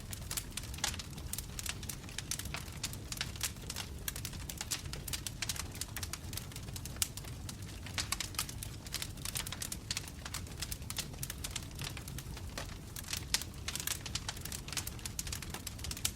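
Wood fire of burning logs crackling, with irregular sharp pops over a low steady rumble.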